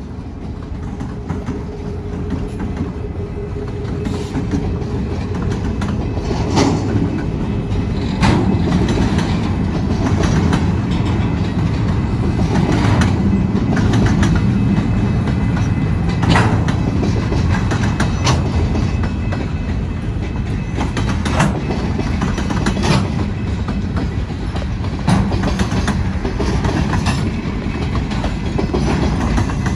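Freight train rolling past: a rumble that grows over the first few seconds as the last locomotive goes by, then freight cars' wheels clacking irregularly over the rail joints and crossing.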